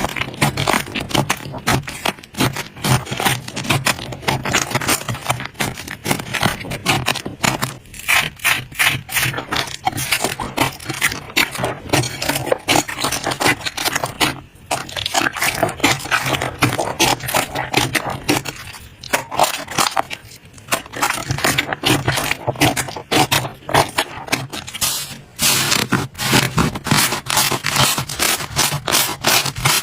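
Slime being worked by hand: squeezed, stretched and poked, giving a dense, irregular run of sticky clicks and crackling pops.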